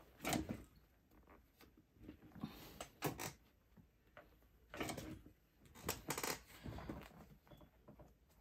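Fabric and a zippered purse being handled and shifted under a sewing machine's presser foot: a few separate rustles and light knocks at irregular intervals, with quiet between.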